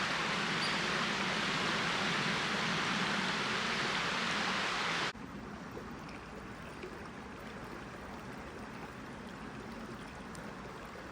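Creek water rushing steadily. About five seconds in it cuts off abruptly to a quieter, softer flowing-water sound.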